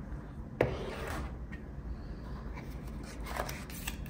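Handling of an iPhone box's paper and cardboard packaging: a sharp tap about half a second in, then rustling and scraping of paper against cardboard as the paper insert is lifted from the tray.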